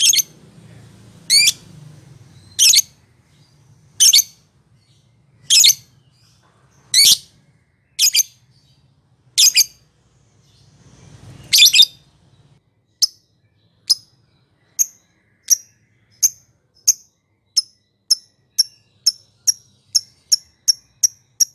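Lovebird calling: loud, sharp, shrill single calls about every second and a half, then from about 13 s a run of short ticking notes that speed up steadily toward the end.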